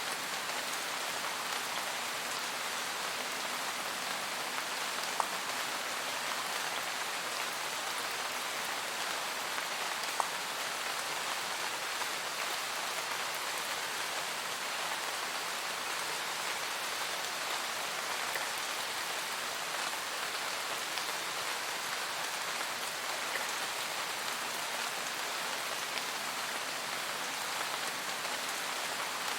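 Steady rain falling in a forest, an even hiss of many drops, with a couple of single louder drops standing out about five and ten seconds in.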